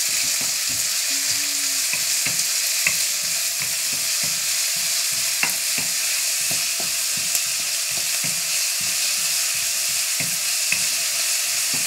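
Chopped onion sizzling steadily in hot oil in a nonstick wok while a wooden spoon stirs it, scraping the pan with a few sharp taps.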